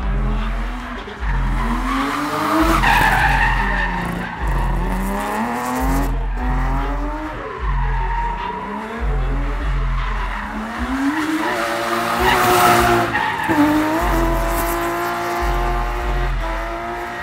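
BMW E36 drifting: its engine revs up and drops back over and over, with the tyres skidding and squealing. It is loudest about twelve and a half seconds in.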